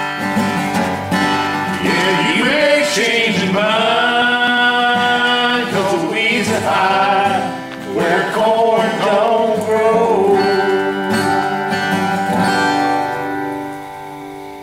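Country song: acoustic guitar under a singing voice holding long notes, fading out near the end.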